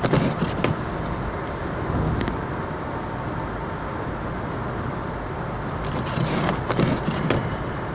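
Steady road and engine noise heard from inside a moving car's cabin, a low rumble with a few light clicks.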